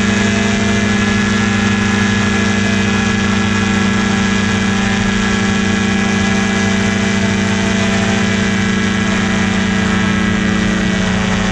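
Paratrike's engine and pusher propeller running steadily in flight, one even drone with no change in pitch.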